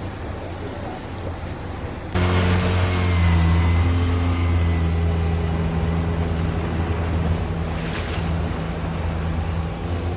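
A motorboat engine running close by, a steady low hum that comes in suddenly about two seconds in.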